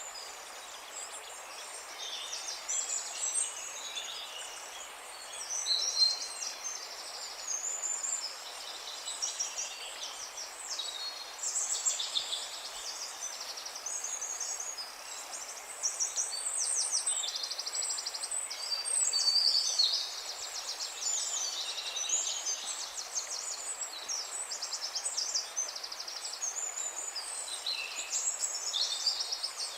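A chorus of many songbirds singing at once, with rapid overlapping chirps and trills, over a steady low hiss of outdoor ambience.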